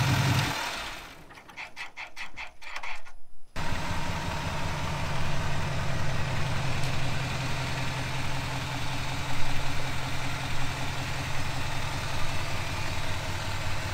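6.6 L Duramax L5P turbodiesel V8 idling steadily, with the deeper growl or drone that the newly fitted Banks Ram-Air intake gives it. The idle drops away briefly about a second in, then comes back and holds steady.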